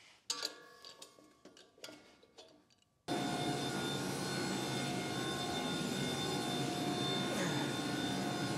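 Faint scattered clinks and knocks of metal, then about three seconds in a sudden steady roar of workshop machinery with a high whine running through it.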